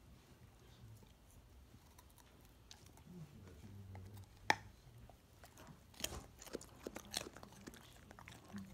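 A pit bull biting and chewing a raw carrot: sharp crunches, the loudest about four and a half seconds in, then a quick run of crunches a second or two later.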